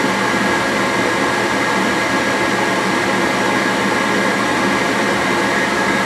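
Gas furnace running on a call for heat: the draft inducer motor's steady whoosh of moving air with a thin steady whine over it. The inducer is pulling the draft that closes the furnace's negative-pressure switch.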